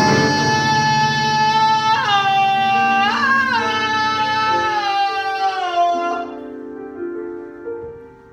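A singer holds one long note over piano chords. The note steps up about two seconds in, bends near three seconds, then slides slowly down and fades out by about six seconds, while the piano chords thin out and die away.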